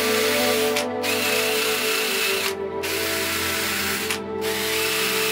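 Handheld rotary tool running with a wire brush against a rusty steel part held in a vise, a hissing scrub in passes broken by short pauses about one, two and a half, and four seconds in. Steady background music underneath.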